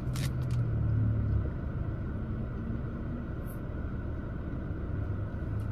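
Steady low rumble inside a car with its engine running, with a few short clicks near the start.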